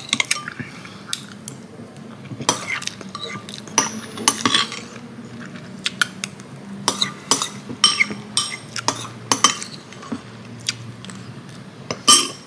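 A metal spoon clinking and scraping against ceramic bowls and a cup while eating, in irregular sharp clicks, sometimes several in quick succession.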